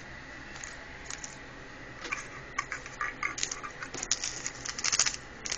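Handling noise: a quick run of small clicks and crackles that starts about two seconds in and is busiest near the end, over a faint steady hiss.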